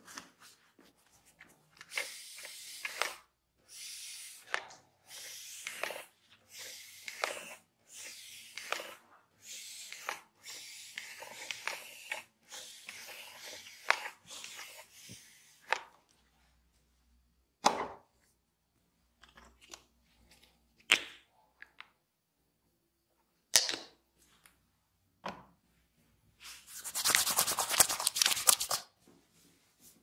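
Hands rubbing over the neck in a massage, a hissy stroke about once a second, followed by a few scattered sharp clicks. Near the end a spray bottle mists water onto the hair in a hiss lasting about two seconds.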